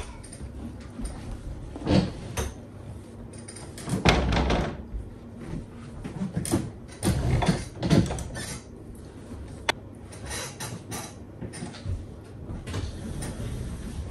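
Kitchen clatter: an irregular series of knocks, bumps and short scrapes from things being handled, with a sharp click about two-thirds of the way through.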